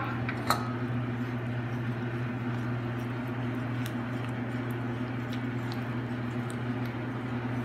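Wire whisk beating an egg into thick batter in a ceramic bowl: soft wet stirring with scattered light clicks of the whisk against the bowl, over a steady low hum.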